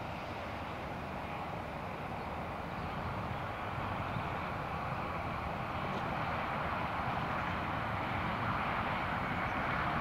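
Distant tractor diesel engine working under load while ploughing, heard as a steady drone that grows slowly louder as the tractor draws nearer.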